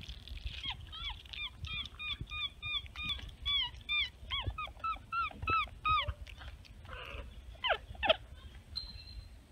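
Capuchin monkeys giving a rapid series of short, high squeaky chirps, about three a second for some five seconds, followed by a couple of quick downward-sliding squeaks.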